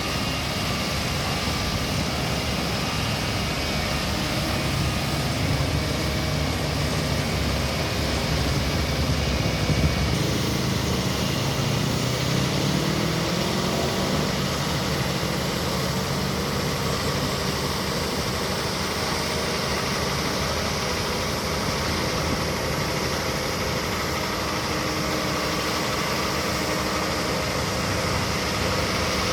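Heavy road-construction machinery, a road roller among it, running steadily, with one engine rising in pitch about ten seconds in as it revs up.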